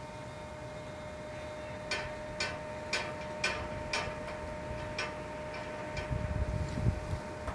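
Metal ticking, about two clicks a second, from a hanging kinetic yard sculpture running along its overhead wire, over a faint steady whine. A low gusty rumble comes in near the end.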